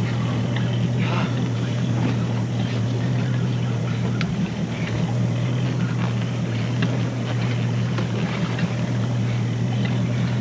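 Mercury Pro XS outboard motor running steadily, a constant low hum, with wind and water noise over it.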